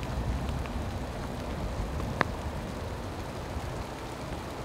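Steady low rumbling noise on the microphone of a camera carried while walking outdoors, with one sharp click about two seconds in.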